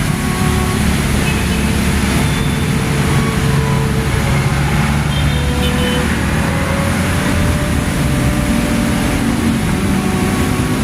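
Steady road traffic noise: vehicle engines running and tyres on the road, with no sudden events.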